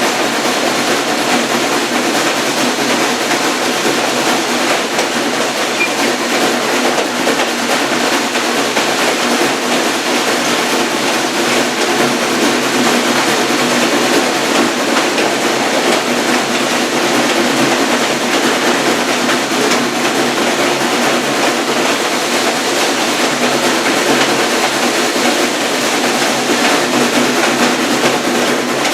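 Steam-hauled passenger train running: a steady rumble and rattle of the coach rolling on the rails.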